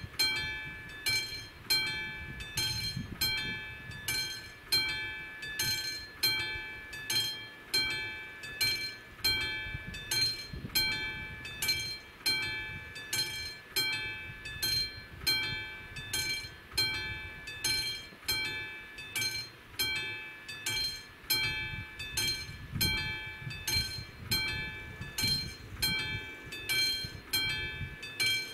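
Electronic warning bell of a level crossing with AŽD 71 flashing-light signals, ringing about twice a second with the same bright chime each time: the crossing is active and a train is due.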